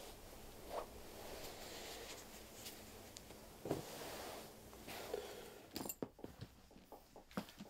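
Cloth rustling as clothes are folded and packed into a suitcase, followed near the end by a quick run of light clicks and knocks as the suitcase is shut.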